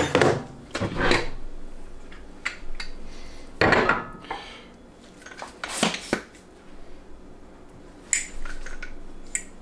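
A series of separate clinks and knocks as glass measuring cups of melted plastisol and aluminium bait-mold parts are handled and set down on a wooden workbench, about six in all. The last two ring briefly.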